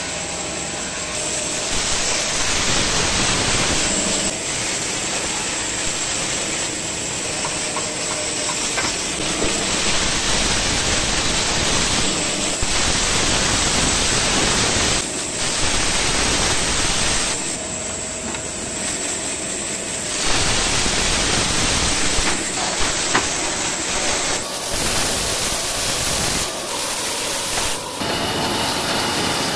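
Wood-cutting band saw running and cutting through wooden strips, a loud steady hiss-like noise that shifts several times as pieces are fed through the blade.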